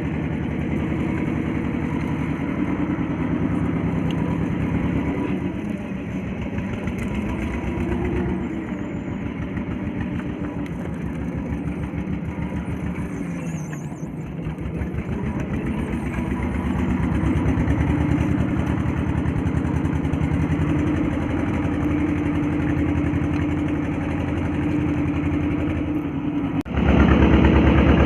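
Fishing boat's engine running steadily, with its pitch rising and falling a little; near the end the sound suddenly becomes louder and fuller.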